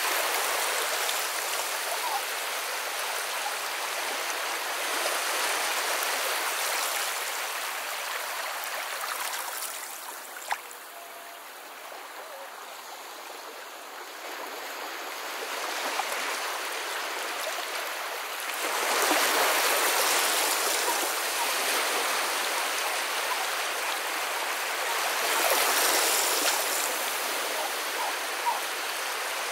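Running water: an even rushing hiss that thins out in the middle, then swells up twice, with a small click about ten seconds in and another near the end.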